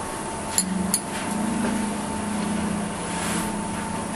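A metal fork clicks twice against a ceramic plate about half a second in, as it cuts a piece of cheesecake. Behind it runs a steady background hum with a faint constant high tone.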